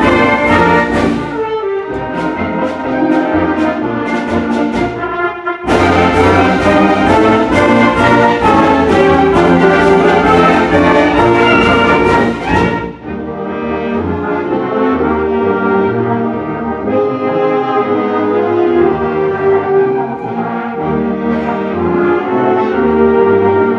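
High school concert band playing a march: full band with brass and cymbal crashes, which drops about halfway through to a softer passage of held brass chords without the percussion.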